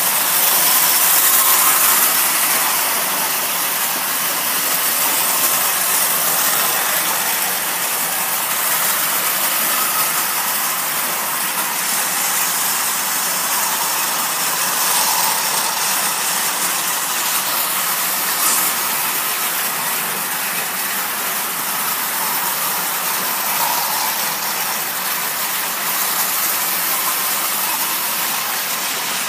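Marx tinplate toy diesel trains running steadily on metal track, a continuous hissing rattle of their motors and wheels on the rails.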